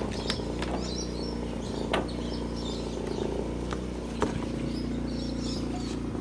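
A second small generator's engine running steadily, with sharp metallic clinks of hand tools about two seconds in and again a little after four seconds, and birds chirping in the background.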